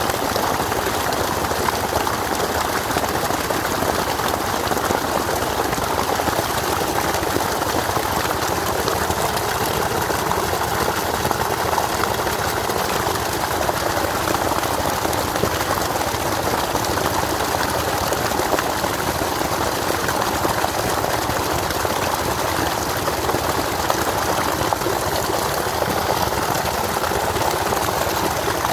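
Rushing water, a steady unbroken noise.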